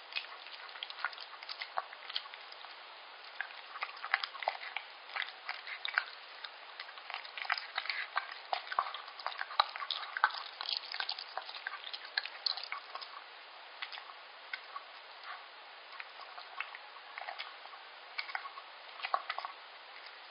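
Yorkshire terrier eating wet liver pâté from a stainless steel bowl: an irregular run of wet licking, chewing and smacking clicks, busiest through the middle.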